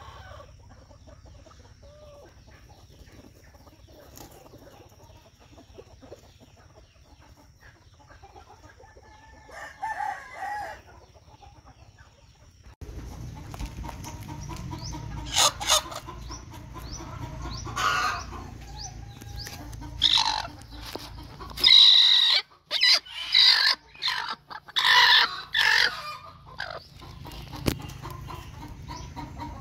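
Chickens clucking and squawking: faint at first with a single call about ten seconds in, then a run of loud repeated calls in the second half.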